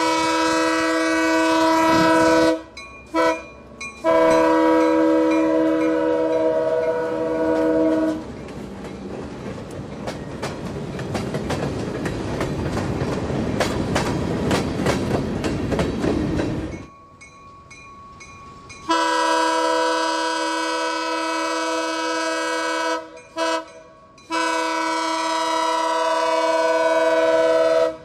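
EMD GP10 diesel locomotive's multi-chime air horn sounding long blasts with short blasts between. In the middle the locomotive passes close, engine running and wheels clicking over the rail joints, and fades before the horn sounds again, long, short, long.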